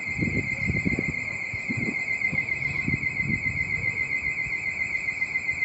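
A steady, high-pitched warbling tone like an electronic alarm, holding one pitch throughout. Under it, wind buffets the microphone in gusts.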